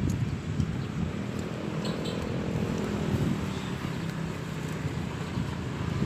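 Steady wind rumble on the microphone outdoors. A motor engine passes, its note rising and then fading between about one and a half and three and a half seconds in.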